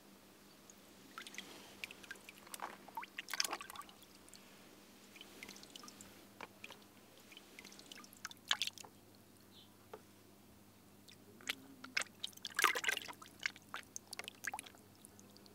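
Water splashing and dripping in short, scattered bursts as fish are lifted and handled in a bucket of water. There are a few louder splashes among quieter drips.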